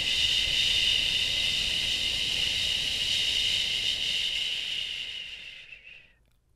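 A woman's long, steady "shhh" exhaled through the mouth: the Taoist healing sound for the liver. It fades and ends about six seconds in.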